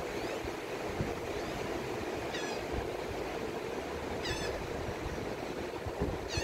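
Gulf surf rushing steadily, with a bird calling three times, each call a quick run of high notes, about two seconds apart.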